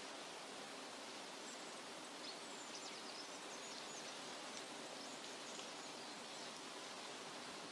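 Forest nature ambience: a steady soft hiss, with a few faint high bird chirps from about two to five seconds in.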